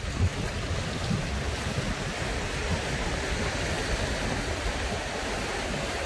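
Ocean surf washing ashore while wind buffets the microphone in uneven low gusts.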